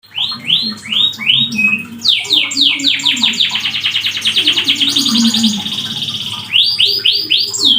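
Domestic canary singing loudly. It opens with a handful of rising whistled notes, then a fast run of falling notes about eight a second and a buzzy rattle in the middle, and ends with rising notes again.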